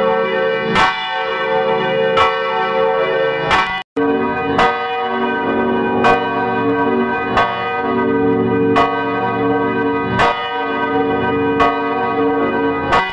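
Church bell ringing, struck about every one and a half seconds, each stroke ringing on into the next. About four seconds in, the sound cuts out for an instant, then the ringing resumes with a changed set of tones.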